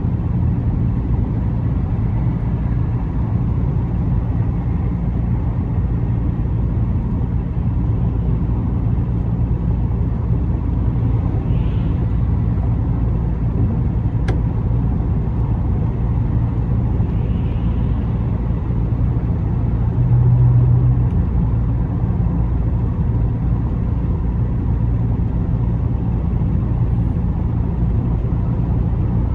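Car driving along a road: a steady low rumble of engine and tyre noise, with a brief swell in the rumble about two-thirds of the way through and a single faint click about halfway.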